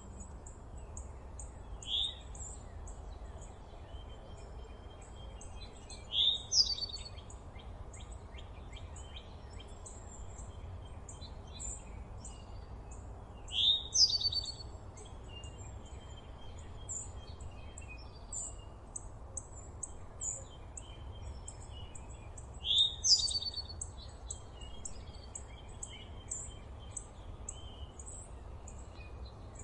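Forest birdsong: one bird repeats a short, loud whistled phrase about every eight seconds, over a steady run of quick high chips from other birds. A low steady rumble lies underneath.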